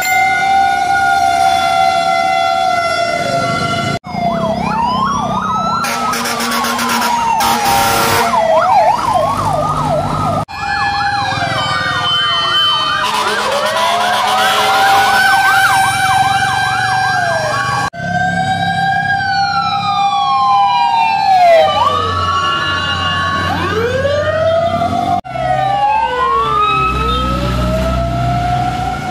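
Fire truck sirens from several passing fire engines. They overlap in slow rising-and-falling wails and fast yelping sweeps. The sound breaks off and picks up again a few times.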